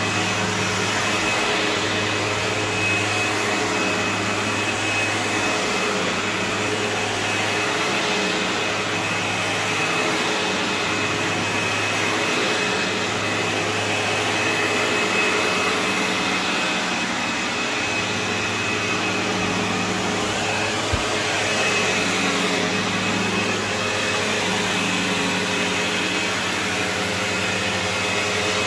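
Sebo Automatic X4 upright vacuum cleaner running steadily as it is pushed over carpet: a continuous motor hum with a thin high whine over it.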